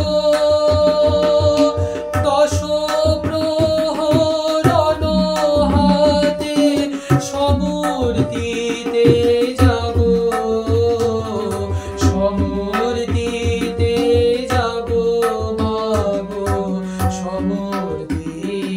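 A man singing a Bengali devotional song to his own harmonium accompaniment, the harmonium holding steady reed chords under his voice, over a regular drum rhythm.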